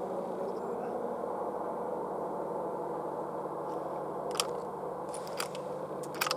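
Steady hum and hiss of background noise, with a few short sharp clicks in the last two seconds.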